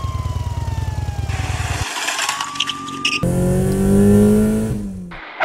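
Added vehicle sound effects for toy police vehicles: a small engine running with a fast putter while a police siren wails down and back up, with a rushing noise. About three seconds in, a louder engine revs up, rising in pitch, then dies away near the end.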